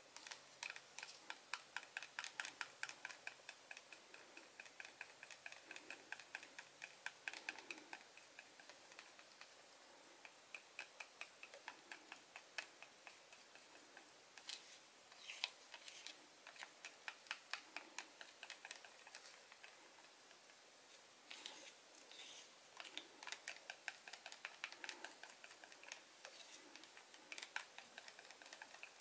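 A stir stick ticking and scraping against the wall of a small plastic cup while acrylic paint is mixed in it: quick, light clicks several times a second, with a few short pauses.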